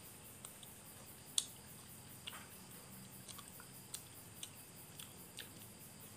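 A person eating: scattered wet mouth clicks and lip smacks while chewing, about eight in all, the sharpest about 1.4 s in. Faint steady high insect chirring runs underneath.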